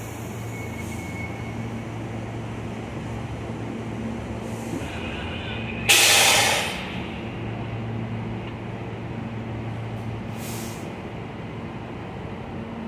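New York City subway train at a station, a steady low hum from the train with a loud, short hiss of air from its brakes about six seconds in and fainter short hisses around five and ten seconds.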